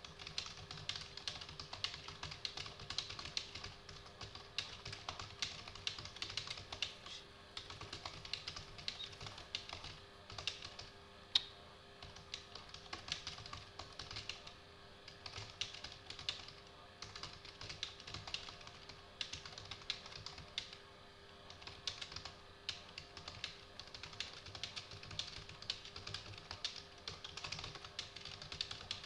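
Fast typing on a computer keyboard, about 80 words a minute: a dense run of key clicks with a few short pauses, picked up from a little way off the microphone.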